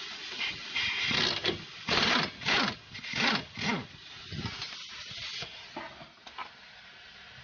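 Socket ratchet wrench with a 14 mm socket on an extension working loose the nut of a car's front stabilizer link: several loud ratcheting strokes in the first four seconds, then quieter clicks.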